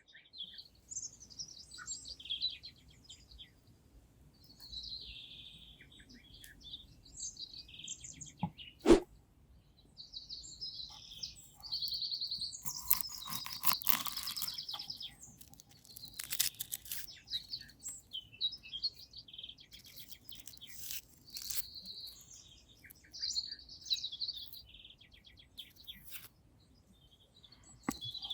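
Small birds chirping and singing on and off throughout. About nine seconds in there is a single sharp knock, the loudest sound. A few seconds of crackling, scraping handling noise follow around the middle.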